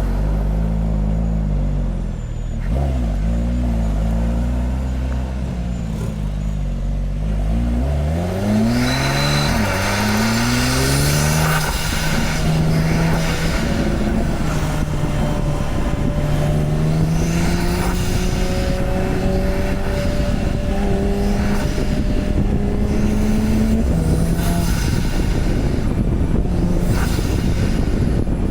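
Porsche 991 Turbo's twin-turbocharged flat-six running steadily at low revs. About eight seconds in, it revs up sharply under acceleration with a rushing noise, then settles into a steady cruise, its note climbing slowly.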